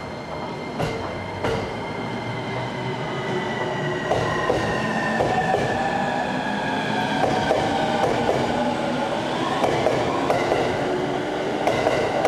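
Tōkaidō Line electric commuter train pulling out of the station: its motors whine in several tones that sink slightly and then climb as it gathers speed, while wheel clicks over the rail joints come faster from about four seconds in.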